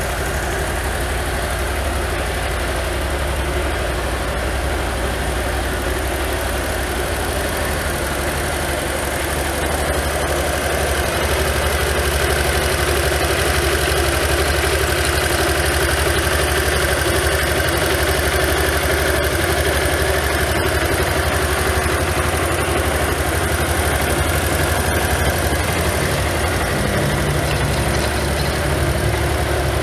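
Honda DN-01's 680 cc V-twin idling steadily while the bike stands still. It grows slightly louder about a third of the way in.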